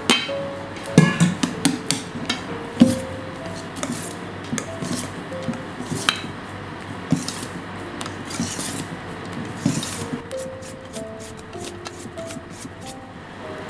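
Wire balloon whisk stirring briskly in a stainless steel bowl, its wires scraping and clicking against the metal in irregular strokes as whipped egg whites are mixed into cake batter. Soft background music runs underneath.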